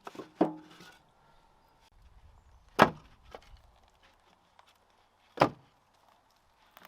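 Split firewood knocking against wood: a short cluster of knocks at the start, then sharp single knocks a few seconds apart.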